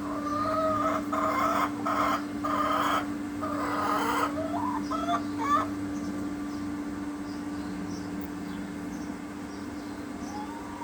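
Chicken calling: a long drawn-out call broken into several parts over the first few seconds, followed by a few short clucks.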